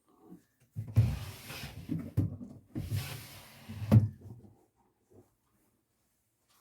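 Household handling noise: two spells of rubbing and rustling, each ending in a sharp knock about two seconds apart.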